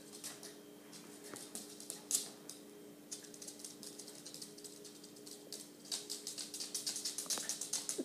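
Light, quick clicking of a puppy's claws on a hard floor, scattered at first and coming faster and more evenly near the end, over a faint steady hum.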